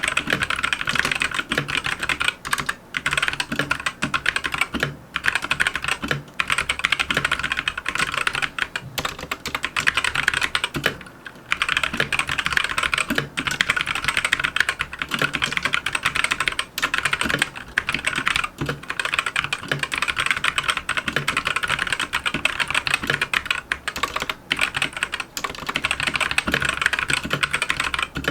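Continuous typing on a Monstargear MK308 mechanical keyboard with Gateron red optical switches, which are linear with no tactile bump, and double-shot PBT keycaps. The typing stops briefly about eleven seconds in.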